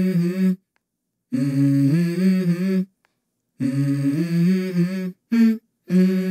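Dance-workout music track: a wordless, hummed vocal melody in short phrases of held notes that step up and down in pitch, each phrase cut off by a dead-silent gap of under a second.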